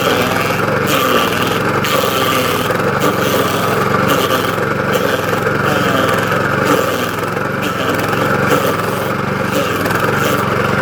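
DR stump grinder running under load as it chews into a stump, its engine steady while the cutting noise rises and falls about once a second as the cutter wheel is swept side to side.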